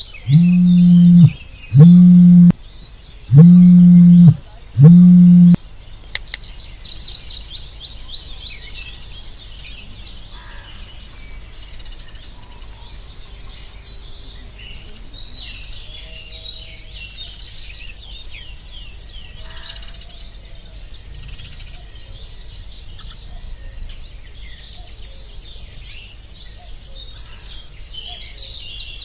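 A smartphone vibrating in four buzzes of about a second each, all at one steady low pitch, stopping about five seconds in. Small birds chirp and trill throughout.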